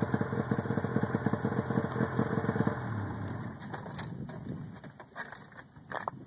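Arctic Cat Bearcat snowmobile engine idling with a rapid, even pulse, then shut off about three seconds in. A few light knocks and scrapes follow.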